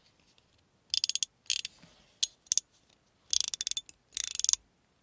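Metal fidget slider being slid back and forth, its slide clicking over the detent track in rapid runs of clicks, about six short strokes with pauses between.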